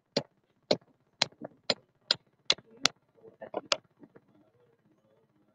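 A hammer strikes a lugless joining shackle of anchor cable about eight times, sharp knocks roughly two a second, tapping the lead pellet into the pin hole to lock the shackle's pin. The blows stop about four seconds in, with a few fainter knocks after.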